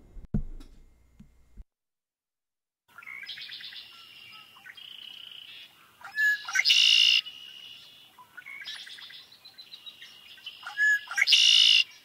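Male red-winged blackbird singing its conk-a-ree song twice from a recording. Each song is a few short high notes leading into a loud, dense trill about a second long.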